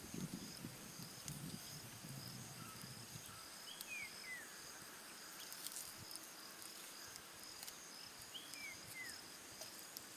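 Steady high insect chorus of crickets, with a bird calling twice, each call a short phrase of falling whistled notes, about four and a half seconds apart. Faint crackling of the wood fire and a low rumble during the first few seconds.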